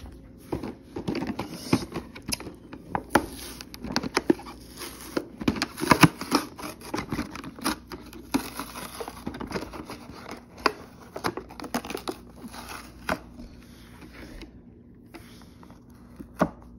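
Cardboard toy packaging being opened by hand: irregular crinkling, tearing and sharp clicks, thinning out after about thirteen seconds, with one louder click near the end.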